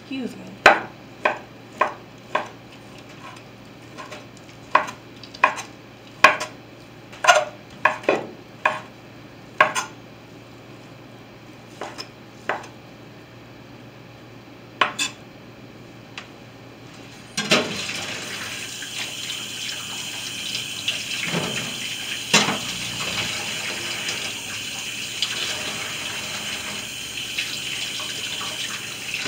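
A knife chopping roasted turkey on a counter: sharp, irregular knocks about once a second, thinning out after about ten seconds. From a little past halfway a kitchen tap runs steadily into the sink, with a few clinks of dishes.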